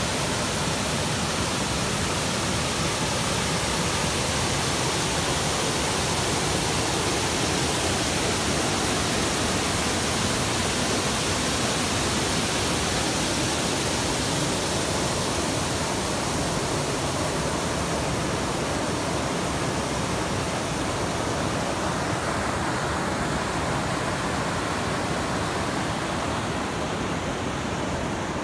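Low, wide river waterfall pouring over a tufa barrier: a steady rushing noise of falling water, a little duller in the last few seconds.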